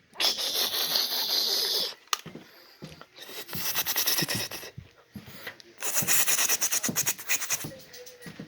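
Rubbing and scraping noise in three bursts of a second or two each, with gaps between them.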